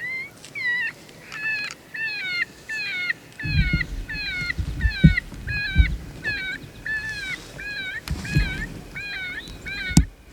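Predator call sounding a distress cry: short, falling, high-pitched squalls repeated about twice a second. Low rumbling knocks come and go under it, and a sharp click sounds near the end.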